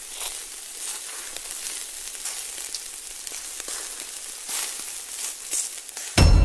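Crackling, sizzling sound effect: a dense hiss with many small sharp crackles, as for burning, glowing letters. Just before the end a loud, deep sound cuts in suddenly.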